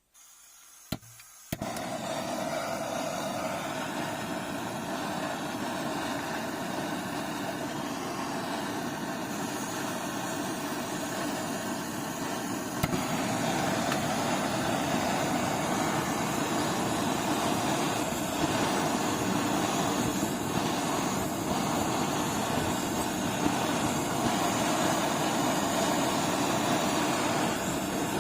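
A click, then a steady machine-like rushing noise that starts suddenly about a second and a half in and grows a little louder about halfway through.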